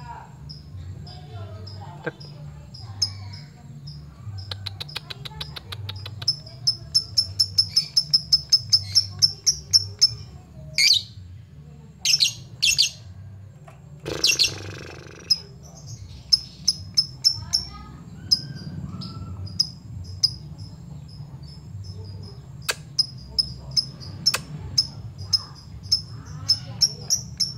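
Lovebird calling in long strings of short, high chirps that come thick and fast in places, with a few louder, harsher calls about halfway through.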